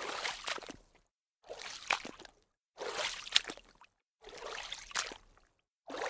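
Water splashing in about five separate bursts of roughly a second each, every one with sharp splashy spikes, separated by silent gaps.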